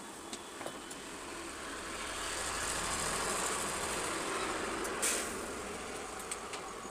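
A broad rumbling noise that builds over a couple of seconds and then fades, with a short sharp hiss about five seconds in. A few faint ticks come from screws being turned out of an aluminium heatsink bracket with a screwdriver.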